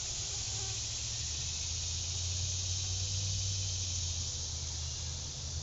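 Steady high drone of insects, likely crickets, with a low rumble on the microphone that grows stronger about a second in.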